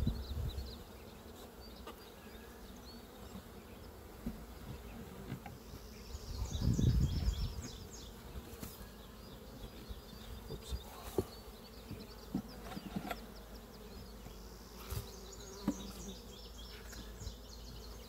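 Honey bees buzzing in a steady hum around an open hive, with a few short knocks of wooden hive parts being set in place in the second half and a brief louder rumble about seven seconds in.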